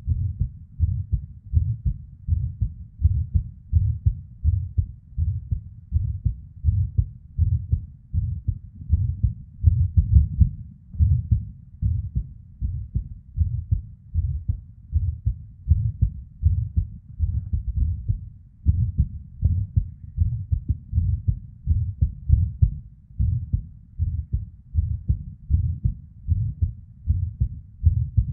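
A woman's heart beating, recorded close up, with deep low thuds at a little over one beat a second and a murmur of blood flow. The rhythm is irregular, with premature ectopic beats (PVCs).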